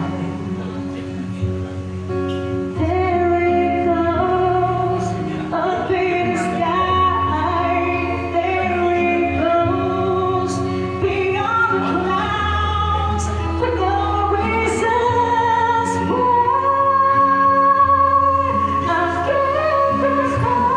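A woman singing a slow ballad into a handheld microphone, holding long notes with vibrato over a soft accompaniment.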